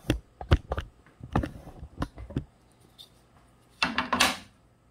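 A handful of short, sharp wooden knocks and clicks, like a small pine box and tools being picked up and set down on a workbench, followed near the end by a brief rustling scrape.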